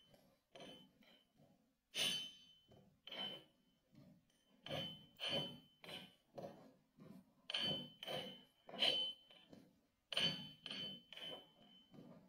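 A spatula pressing and scraping into kinetic sand in a drinking glass, in a slow run of separate strokes, about one and a half a second. Many strokes leave a short high ring from the glass.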